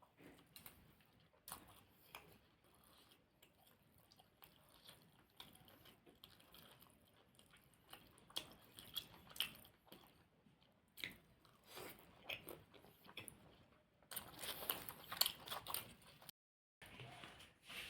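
Close-miked eating sounds: biting and chewing of deep-fried puri bread with potato curry, with soft wet mouth clicks that come thickest and loudest near the end.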